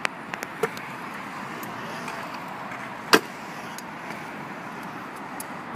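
Trick scooter wheels rolling over a concrete skatepark, a steady rolling hiss. There are a few light clicks in the first second, a sharp clack about three seconds in and another near the end.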